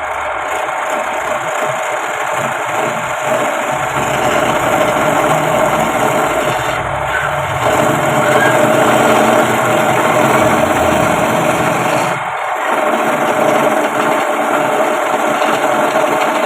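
Wood lathe running steadily with a humming motor, a turning tool cutting and scraping the spinning wood of a spoon blank, with a brief lull about twelve seconds in.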